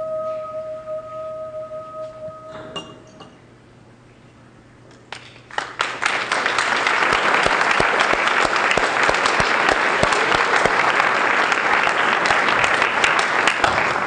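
A held note of background music fades out in the first few seconds. After a short lull, an audience breaks into applause about five seconds in, and the clapping carries on steadily and loudly.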